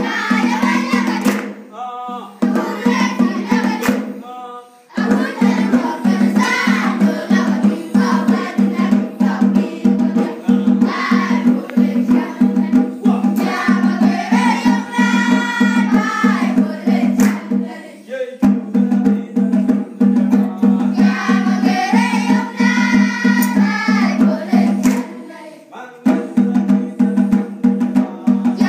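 A group of children singing a song together over a steady rhythmic beat, with a few brief pauses between phrases.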